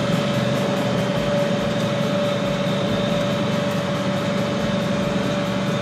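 John Deere tractor running steadily under load while it drives a John Deere small square baler baling straw. The engine and baler make a steady drone with a constant whine over it.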